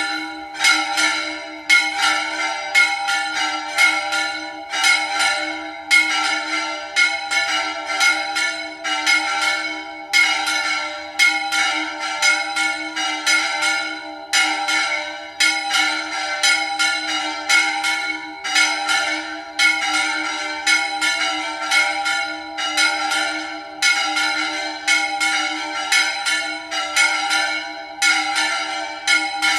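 Repique of three church bells: quick, even strikes, roughly two a second, with the bells' tones ringing on between strikes.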